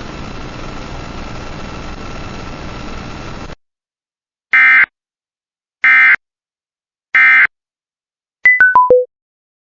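Emergency Alert System end-of-message data bursts: three short, loud, buzzy bleeps about a second and a half apart that close the blizzard warning. Before them a steady hiss with a faint steady tone cuts off about three and a half seconds in; after them, near the end, a quick run of four beeps steps down in pitch.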